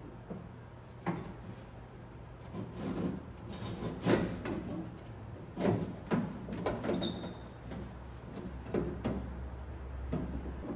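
Steel window regulator of a 1975 International Scout II door being worked out through the door's inner access opening: irregular clunks and scrapes as its arms knock and rub against the door's sheet metal.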